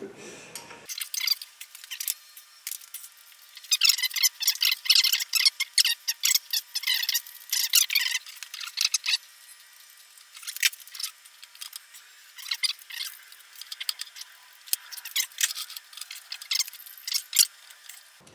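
Rapid, irregular metallic clicks, clinks and scrapes of wrench and bolts as an electric motor is unbolted from a horizontal milling machine, the sound thin with no low end.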